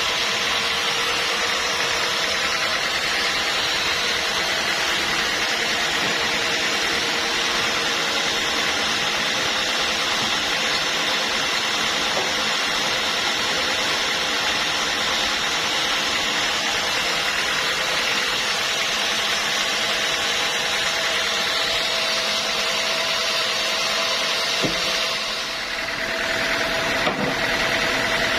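Portable bandsaw sawmill running steadily with its blade cutting through a log. About 25 seconds in the sawing sound changes and dips briefly, with a couple of clicks, leaving the mill's engine running.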